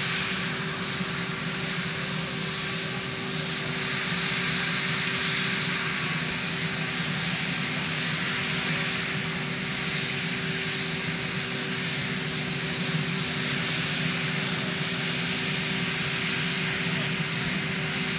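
Steady turbine whine and hiss from a parked Sikorsky VH-3 Sea King helicopter, its rotor blades not turning, with a constant high tone and a low hum underneath.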